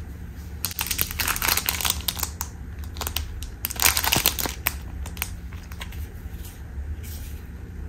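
Clear plastic bags crinkling as they are picked up and handled, in two bouts of crackly rustling in the first five seconds and a few light crinkles after, over a low steady hum.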